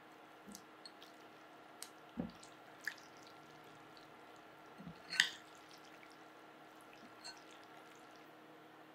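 Wet cooked noodles dropping from a wire-mesh strainer into a ceramic bowl and being tossed in sauce with metal tongs and a spoon: soft wet squishes and drips, with a few clinks and taps of metal on the bowl, the loudest about five seconds in.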